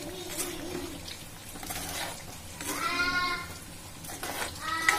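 Spoon stirring thick gravy in a heavy pot, with a few light scrapes and knocks. A long high call with many overtones sounds in the background about halfway through, and a shorter one near the end.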